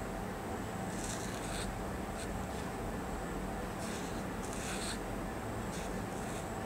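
Felt-tip marker scratching across textured paper in several short strokes over a steady low background noise.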